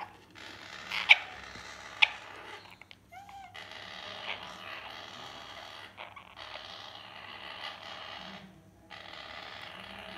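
African grey parrot chick making long raspy hissing calls in repeated stretches with short breaks, with two sharp, loud squawks about one and two seconds in and a short squeaky call just after.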